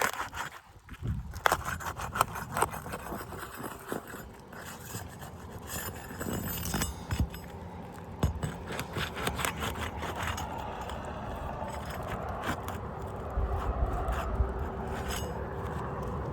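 Asphalt shingle tabs being pried up and worked loose: repeated scraping, crackling and sharp clicks as the sealed tabs are pulled apart. In the second half a steadier rushing noise with a low hum builds up.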